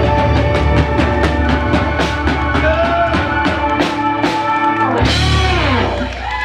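Live rock band of electric guitars, bass and drum kit playing the closing bars of a song. About five seconds in, the band hits a final chord together and it rings out with bending guitar notes.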